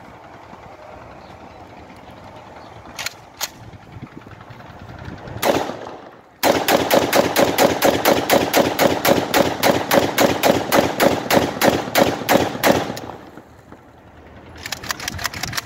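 Copy of a 1975-model AK-47 rifle being test-fired: a single shot, then about a second later a long full-automatic burst of about six seconds before it stops.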